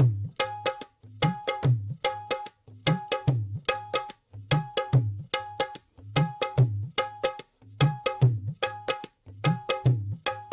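Background music: a steady, fast hand-drum rhythm repeating evenly, with low thuds and sharper ringing strokes.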